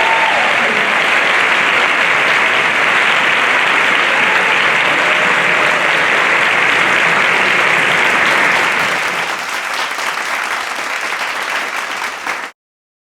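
Concert audience applauding steadily, thinning a little after about eight seconds, then cut off abruptly.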